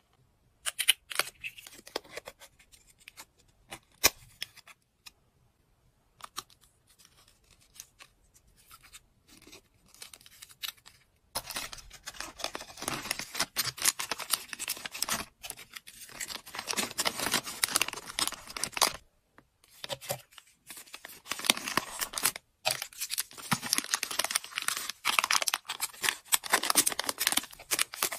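Hands handling a plastic keychain charm and clear plastic packaging bags: a few light clicks and taps at first, then from about a third of the way in, sustained crinkling and rustling of the plastic with two short pauses.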